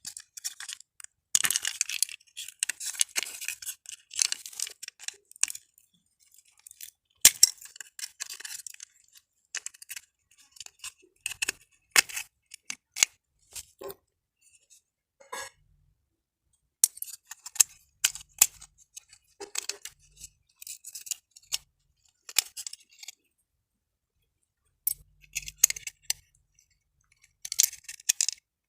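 Parts of a burnt miniature circuit breaker being handled and taken apart: scattered clicks, clinks and short scraping sounds, with brief silent gaps between them.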